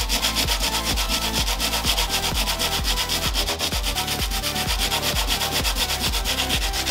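Sheet of old, coarser sandpaper rubbed by hand over dried wood filler on a wooden bench top, in rapid, even back-and-forth strokes, several a second. It is shedding its grit rather than cutting the filler.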